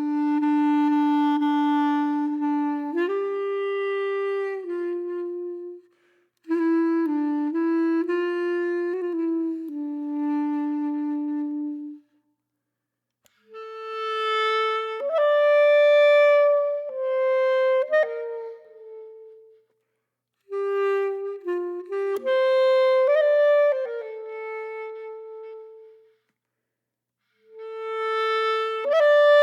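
Background music: a slow melody played on a clarinet-like woodwind, in phrases of held notes with short pauses between them.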